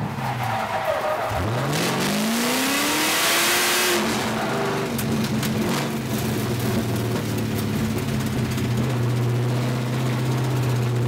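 Drift car engine revving up in a long rising sweep while the tyres hiss loudly in a slide, then holding a steady note for the rest of the time.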